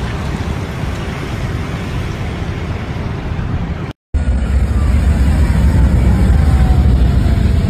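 Traffic noise with wind on the phone's microphone. After a cut about four seconds in, police motorcycles ride past with a loud, steady low engine rumble, and a faint falling whine sounds over it.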